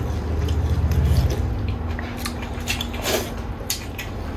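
A person eating rice-noodle soup: a few short slurps of noodles with chewing. A low rumble underneath fades out about a second and a half in.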